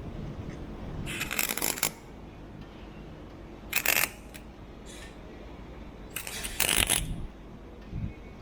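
MIG welder arc crackling in four short bursts as the exhaust pipe's pinholes are tacked, the first and last bursts lasting close to a second. The welds are being run without shielding gas, which the welder admits he forgot to turn on.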